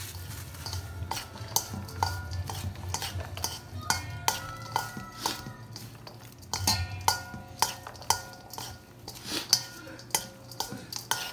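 A metal spoon and a spatula tossing a beef salad in a stainless steel mixing bowl: irregular clinks and scrapes against the bowl, some clinks ringing briefly, over a low steady hum.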